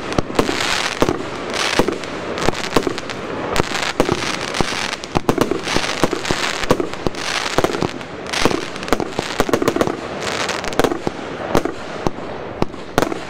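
Heron Cake 456 firework battery firing shot after shot, about one to two a second: each launch's whoosh is followed by sharp bangs and crackling.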